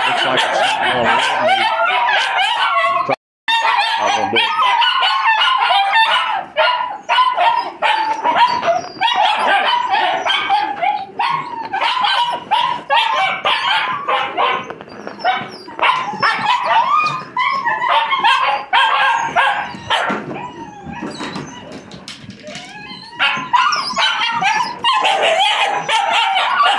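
A litter of high-drive working-line puppies, very vocal, barking and yipping over one another with whimpers mixed in. The sound drops out for a split second about three seconds in, and the din eases for a few seconds about three-quarters of the way through.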